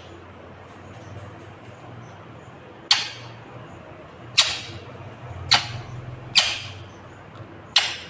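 Green ringneck parakeet (rose-ringed parakeet) giving five short, harsh squawks, unevenly spaced, starting about three seconds in.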